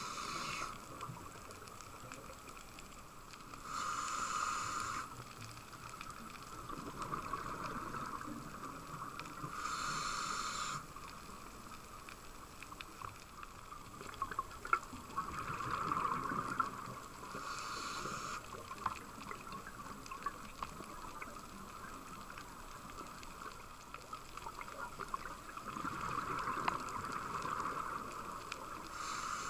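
Scuba diver breathing through a regulator underwater: about five rushes of exhaled bubbles, several seconds apart, over a constant background noise.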